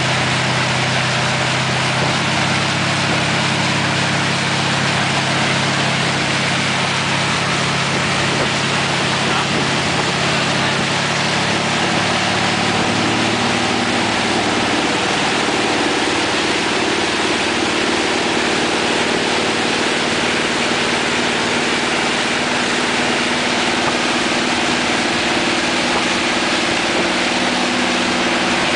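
Motorboat engine running steadily while towing, under a constant rush of wake water and wind. About halfway through, the engine note moves up to a higher pitch and holds there.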